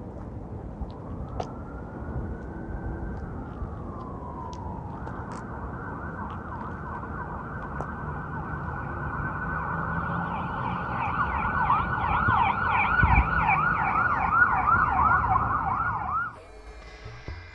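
Emergency vehicle siren over low background street noise: one slow wail rising and falling, then a fast repeating yelp that grows louder and cuts off suddenly near the end.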